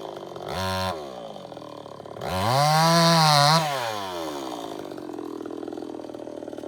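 Chainsaw engine revved twice: a short blip about half a second in, then a longer, louder rev about two seconds in that holds for about a second before dropping back to a lower, steadier running speed.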